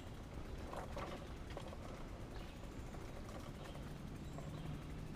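Mountain bike riding along a dirt forest singletrack: a steady rumble of tyres rolling over dirt and wind on the camera microphone, with scattered clicks and rattles from the bike.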